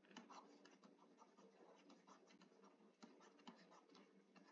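Very faint, irregular ticks and light scratching of a stylus writing by hand on a tablet.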